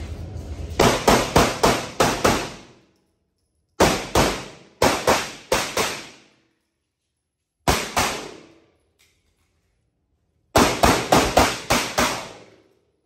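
Pistol shots fired indoors in four quick strings, about six, six, two and seven shots, with pauses of a second or more between them. Each shot rings out briefly in the room.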